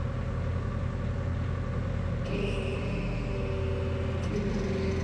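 Bobcat E42 mini excavator's diesel engine running steadily, just after start-up. A higher whine joins in about two seconds in and drops away near the end.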